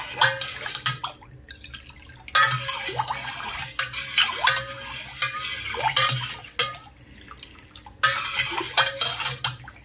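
Long metal spoon stirring a liquid drink in a metal pot: the liquid swishes and sloshes, with irregular clinks of the spoon against the pot's sides. The stirring pauses briefly about a second in and again near seven seconds.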